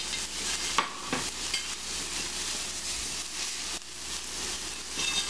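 Breaded cod fillets sizzling steadily in a frying pan. A few light knocks come about a second in and again near four seconds, from the spatula and fork against the pan as a fillet is lifted out.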